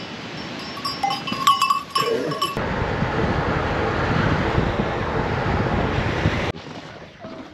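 Goat bells ringing with a short goat bleat close to the microphone; then, after a sudden cut, about four seconds of steady rushing road noise from inside a moving car, which stops abruptly near the end.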